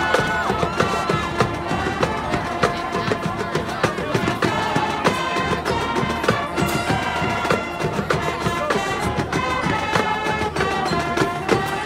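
High school marching band playing a song: sustained horn lines and chords over a steady drum beat.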